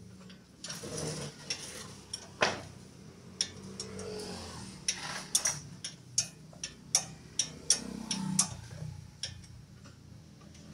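Irregular sharp metallic clicks and clinks of hand tools working on metal parts, a dozen or so spread over several seconds, over a low steady hum.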